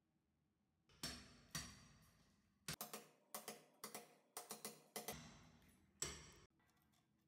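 Hammer blows on a steel chisel cutting a groove into a plastered masonry wall, each strike ringing metallically. About a dozen irregular blows, some in quick pairs, start about a second in and stop abruptly near the end.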